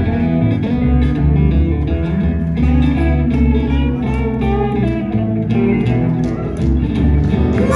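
Live blues band playing: electric and acoustic guitars over an upright bass, with a steady bass line.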